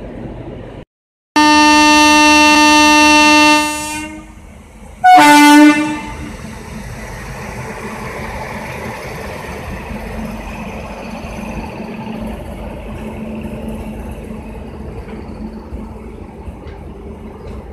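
Electric locomotive horn sounding: one long blast of about two seconds, then a shorter blast a second and a half later, followed by steady train rumble.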